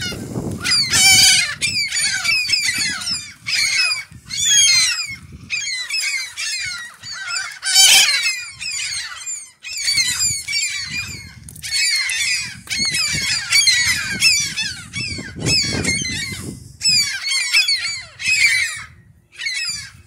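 A large flock of gulls calling over one another: many overlapping harsh, high cries with hardly a break. A low rumble comes and goes underneath.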